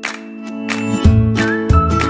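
Background music: repeated struck notes over held tones, with a bass line coming in about a second in and a single high, whistle-like melody starting near the middle.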